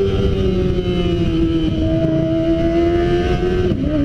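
Kawasaki ZX25R's 250 cc inline-four running at high revs through an Arrow full-system exhaust, its pitch easing slowly down, then dropping sharply near the end. A rough low rumble of wind and road noise runs underneath.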